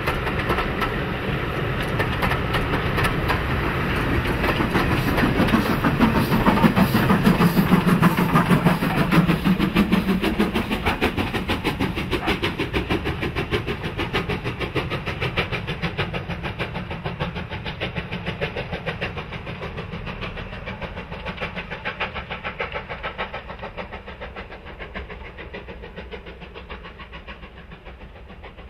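Steam locomotive working a train of coaches past, its exhaust beats coming in a fast, even rhythm over the running of the train. It is loudest about seven seconds in and then fades steadily as the train draws away.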